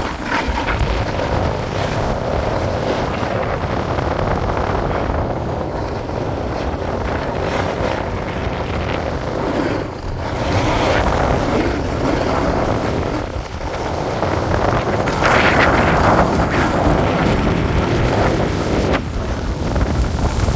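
Wind noise buffeting a phone's microphone while skiing downhill, mixed with skis scraping and hissing over the snow; it swells louder a few times.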